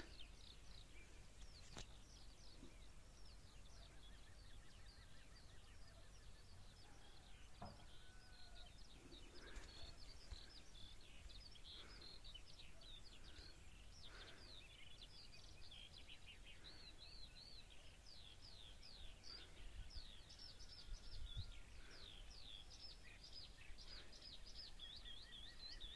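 Eurasian skylarks singing: a faint, unbroken stream of rapid high chirps and trills, with a few thin whistles mixed in.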